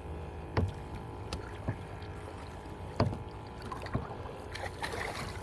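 Scattered sharp knocks and taps aboard a fishing kayak, about five in all, over a steady low hum.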